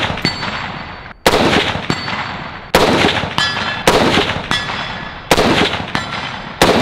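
FN SCAR 17 rifle in 7.62×51mm firing five single aimed shots, about one and a half seconds apart. Each report echoes, and several are followed a fraction of a second later by the faint ping of a steel target being hit at 150 yards.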